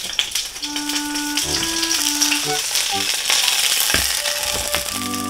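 Food frying in a hot pan: a steady sizzle with many small crackles.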